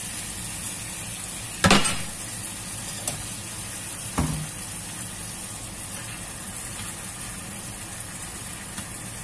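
Prawns and chopped tomatoes sizzling steadily in a hot frying pan. A loud sharp knock sounds about two seconds in, a small click at three seconds, and another knock with a short low ring at about four seconds.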